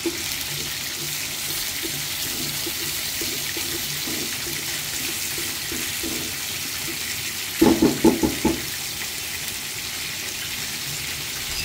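Chopped garlic sizzling in hot oil in a non-stick pan with a steady hiss, stirred with a silicone spatula. A brief cluster of louder knocks comes about eight seconds in.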